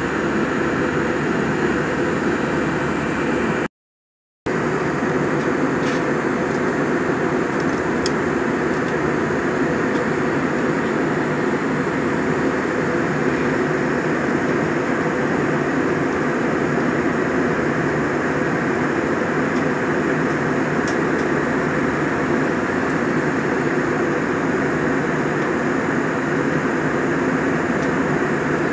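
Steady in-flight cabin noise of an airliner, heard from a window seat. It cuts out completely for under a second about four seconds in.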